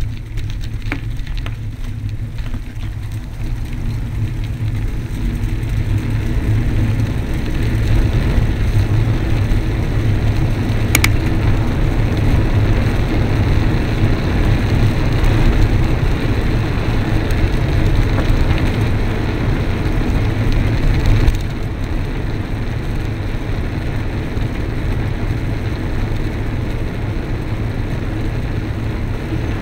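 Riding noise from a bicycle-mounted camera: steady wind rumble on the microphone with a gritty hiss from tyres on a gravelly lane surface. It grows louder through the middle, with a single sharp click about a third of the way through, and drops suddenly about two-thirds of the way through.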